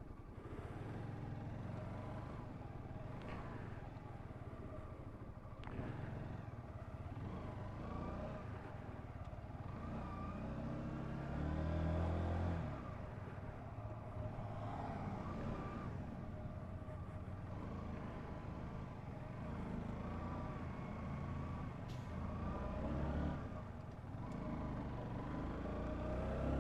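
Honda CBR125's single-cylinder four-stroke engine running under way, its pitch rising several times as it accelerates and dropping back as it eases off.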